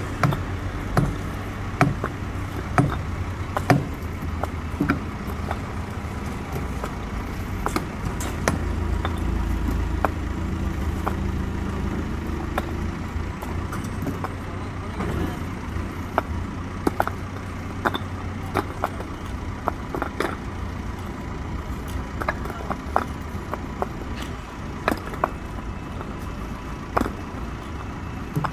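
Backhoe loader's diesel engine running steadily, a little louder in the middle stretch, with frequent sharp clacks of concrete paving stones being set down and knocked into place.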